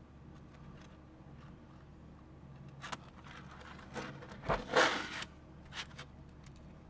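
A plastic CD jewel case being handled and opened by hand: a few sharp plastic clicks, then a louder scraping clatter of the case as it opens, about four to five seconds in, and one more click just after.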